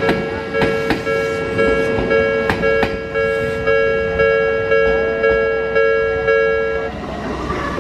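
Japanese level-crossing warning bell ringing a two-tone electronic ding about twice a second, stopping about seven seconds in. Through the first three seconds the wheels of an Odakyu 8000 series train clack over the rail joints.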